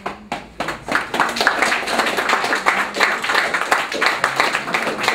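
Audience applauding: a few scattered claps at first, swelling within about a second into steady clapping from many hands.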